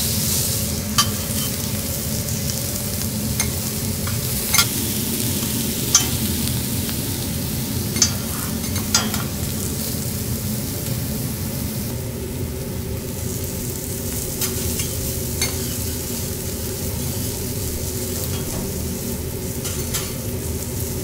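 Abalone, scallop adductors and asparagus sizzling in butter on a steel teppanyaki griddle. A metal spatula gives sharp clicks against the plate now and then, most of them in the first half.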